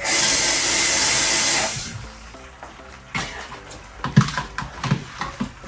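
A loud rush of running or splashing liquid for about two seconds, then light clinks and knocks of dishes and utensils.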